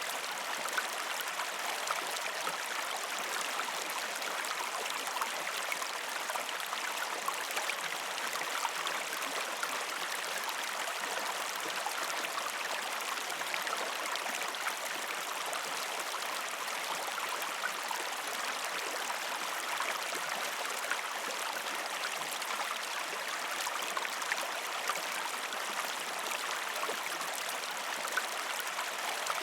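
A shallow river stream running steadily over rocks, a constant rushing with small splashes and gurgles.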